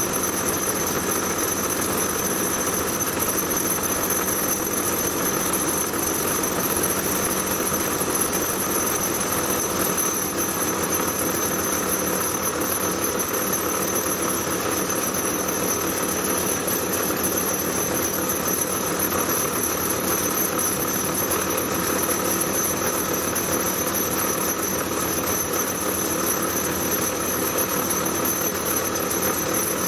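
Metal lathe running under power, a steady motor hum with a constant high-pitched whine, during the final cut on a metal spacer.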